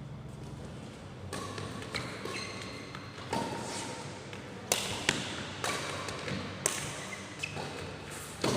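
A ball thumping several times in an indoor court, with short squeaks or distant calls between the hits.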